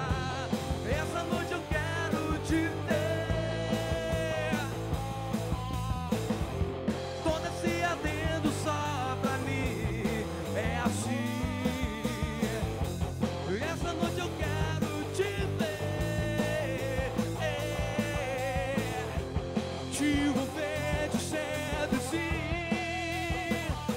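A live rock band plays a song: drum kit, electric guitar and electric bass, with a male lead singer.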